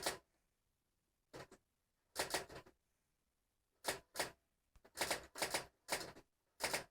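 Keys of a very old typewriter being struck, irregular clacks with pauses, some single and some in quick runs of two to four, more of them near the end.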